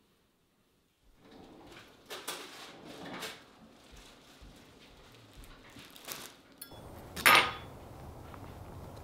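Kitchen clatter starting about a second in: dishes and cupboard doors knocking in several separate knocks. A louder sharp knock comes about seven seconds in.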